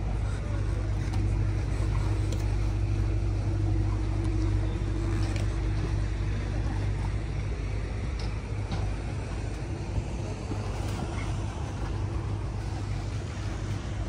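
A moored yacht's machinery running: a steady low hum with a fainter, higher tone above it that fades away about halfway through.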